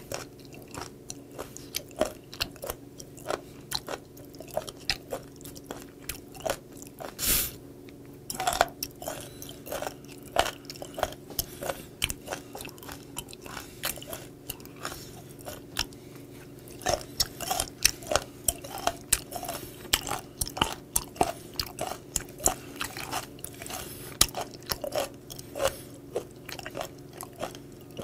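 Close-miked chewing of crunchy raw seafood (sea cucumber, spoon worm and skate-nose cartilage): a steady run of sharp crunching clicks, with one longer noisy sound about seven seconds in.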